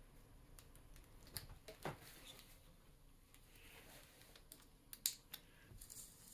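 Faint, scattered small clicks of a plastic bottle cap being handled on silicone drinking tubing, the sharpest about five seconds in.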